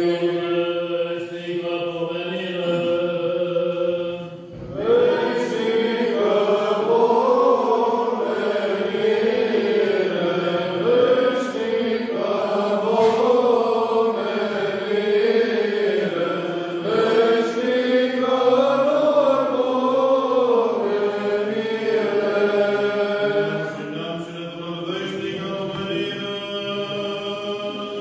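Orthodox liturgical chanting by several voices, with long held and gently wavering notes and a short pause about four and a half seconds in.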